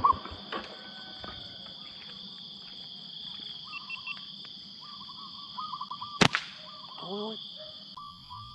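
Insects buzzing steadily in two shrill high bands, with small birds chirping short phrases in the trees. About six seconds in, a single sharp snap of a slingshot being shot at a bird.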